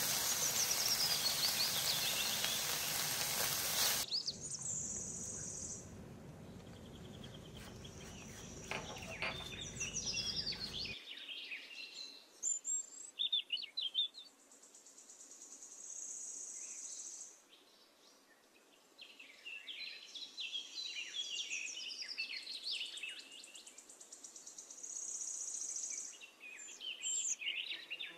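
Small birds chirping and trilling in quick high runs, with a high steady buzz coming and going every few seconds. For the first four seconds a loud steady hiss covers them, then cuts off suddenly.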